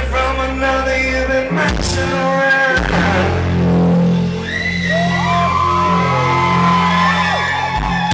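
Live rock band playing loudly, with sustained bass notes and a singer's held, sliding vocal lines over them.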